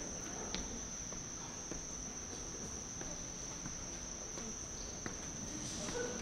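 Quiet theatre with a steady high-pitched whine over low room noise, and a few faint knocks of footsteps on the wooden stage.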